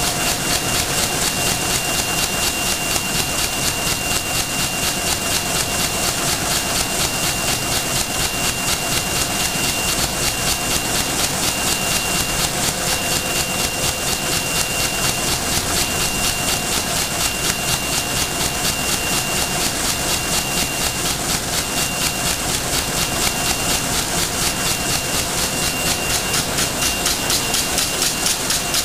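CT-9914 left-handed wicketer, a plastic bag-making machine, running at speed: a fast, even mechanical clatter as its bag-transfer arms cycle, several strokes a second, with a thin high whine over it through most of the run.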